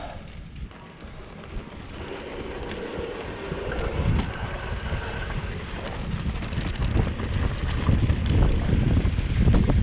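Wind buffeting the microphone while an electric mountain bike rides down a dirt trail, with tyre rumble and scattered rattles and knocks. It grows louder from about two seconds in.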